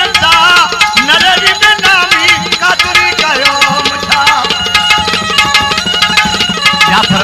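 Indian folk music without words: a tabla plays a fast, steady beat under a wavering, ornamented melody and a few steady held tones.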